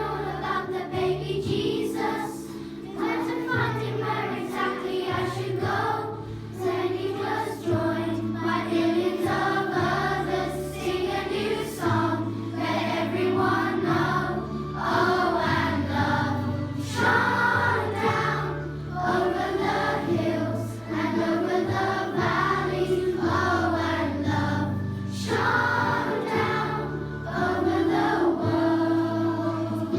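A children's choir singing a song together over instrumental accompaniment with sustained bass notes.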